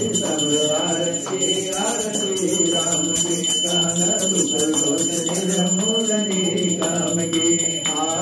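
Hindu aarti being sung, with a bell ringing steadily throughout and rhythmic metallic jingling keeping time.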